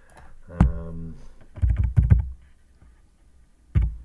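Keys pressed on a computer keyboard, a quick run of several thudding keystrokes about midway and another near the end, typing and deleting text. A brief hummed voice sound comes about half a second in.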